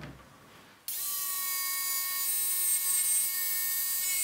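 TACKlife TJS02A barrel-grip jigsaw starting about a second in and running steadily with a high motor whine, its blade cutting into a pine board with the pendulum action set to zero.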